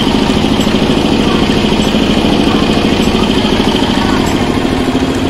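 Engine running steadily close by, a fast, even chugging with a steady high whine above it.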